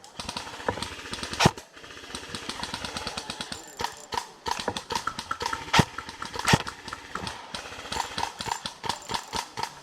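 Airsoft guns firing: long strings of rapid, evenly spaced clicking from full-auto fire, with a few louder single shots standing out about one and a half, six and six and a half seconds in.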